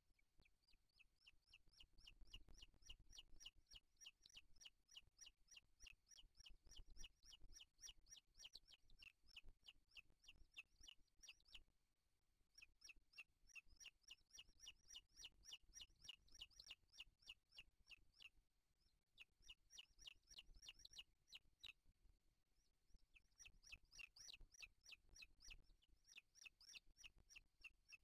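Booted eagles calling at the nest: faint, long runs of rapid, high, chip-like notes repeated several times a second, in four bouts broken by short pauses.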